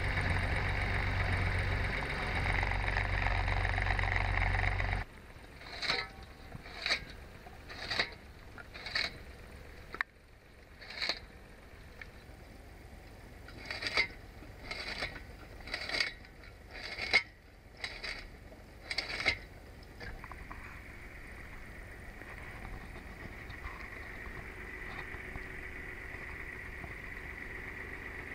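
Tractor engine running under power for about five seconds. It then gives way to a homemade PTO-driven firewood cutter chopping branches into short pieces, a sharp chop about once a second, in two runs. Near the end the cutter spins freely with a steady hum.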